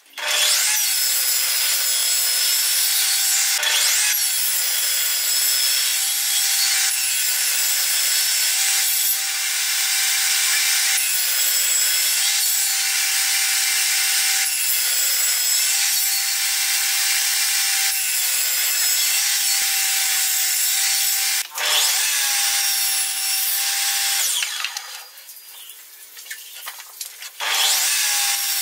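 Table saw running and cutting into the end of a board held upright in a jig: a steady motor hum with the blade's high cutting hiss, starting abruptly. It breaks off briefly about 21 seconds in, drops for a couple of seconds near the end, then comes back up.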